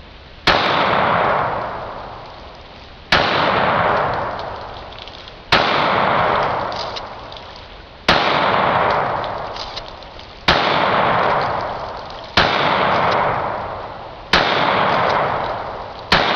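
Taurus PT111 Pro 9mm pistol fired eight times at a slow, steady pace, about one shot every two and a half seconds, each shot trailing off in a long fading echo.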